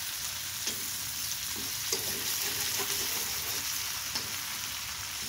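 Giant freshwater prawns sizzling steadily as they fry in mustard oil in a metal kadai, with a few sharp taps and scrapes as a metal spatula turns them.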